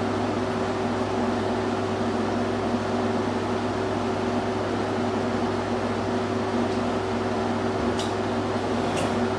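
Steady machine hum, like a running fan or air conditioner, unchanging throughout. Two short sharp clicks come near the end, about a second apart.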